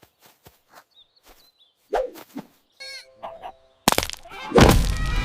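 Cartoon sound effects: a few soft knocks and a short grunt, a wavering squeaky tone, then a sudden loud crashing burst with a low rumble near the end.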